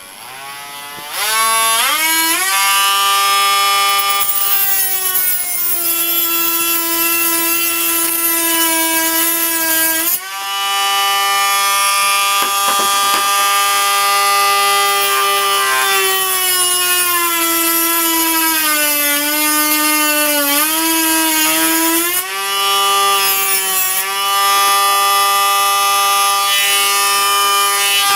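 Handheld rotary tool with a small cutting bit, cutting the plastic of a SATA-to-USB converter board. The motor spins up about a second in to a steady high whine. Its pitch sags as the bit bears into the plastic and recovers, with short drop-outs about ten seconds in and again a little past twenty seconds.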